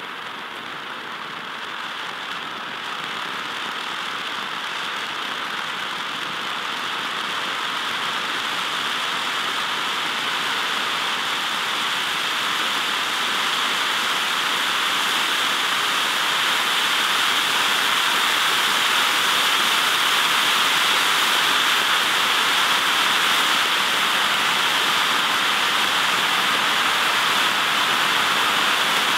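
Ground firework fountain (Stucki 'Meerjungfrau' volcano) burning with a steady, even hiss of spraying sparks, which grows louder over the first two-thirds and then holds.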